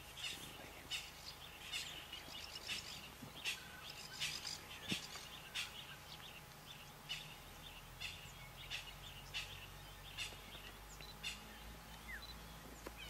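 Repeated sharp, high chirping calls from a small animal, one or two a second, over a faint low hum.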